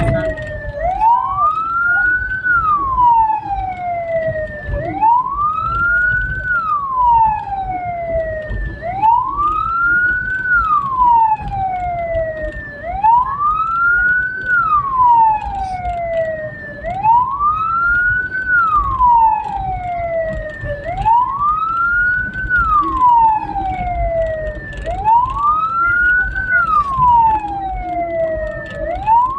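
Hearse siren wailing, rising quickly and falling slowly about once every four seconds, over a steady low rumble.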